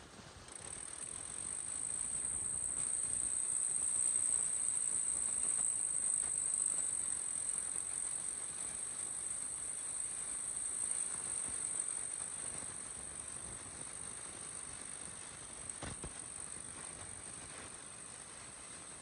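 Kubota M6040SU diesel tractor pulling a disc plow through dry soil: a steady rumbling noise of engine and turning earth that swells as the tractor passes close and then eases off as it pulls away. A steady high-pitched whine sits above it.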